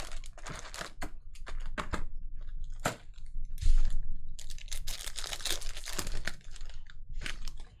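Trading-card packs being handled: foil wrappers crinkling and tearing, with a quick run of clicks and rustles as cards are slid and flipped through. The rustling grows busier in the second half.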